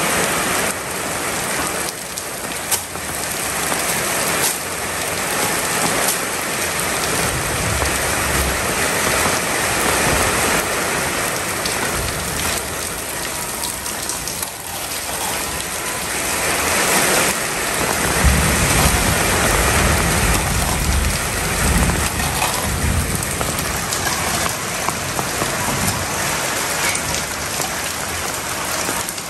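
Steady rain falling on a corrugated metal roof, a constant loud hiss. A low rumble swells about 18 seconds in and lasts several seconds.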